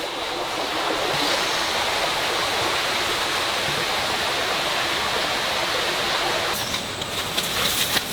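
Steady rush of running water, with a few sharp clicks near the end.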